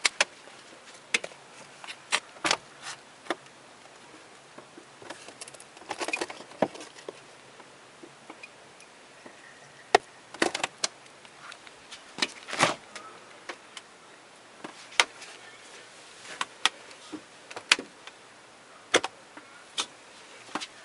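1970s Admiral refrigerator making irregular short hisses and crackling pops, a second or two apart, over a faint steady hum. The uploader ties the noises to dripping inside the fridge.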